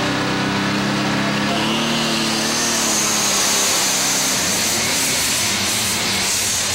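John Deere 4010 diesel super stock pulling tractor, its 466-cubic-inch four-turbocharger engine running flat out under load while pulling the sled. A high whistle joins the engine about halfway through.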